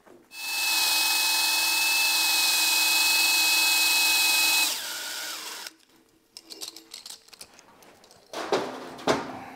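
Cordless drill spinning an automotive-style stone hone inside a hydraulic bottle jack's oiled steel cylinder, doing the last passes on its pitted bore. It runs at a steady whine for about four seconds, then winds down, followed by a few small knocks as the tool is handled.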